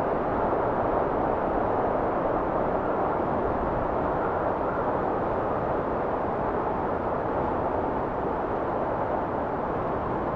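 Wind blowing steadily: an even rushing sound with no gusts, breaks or other events.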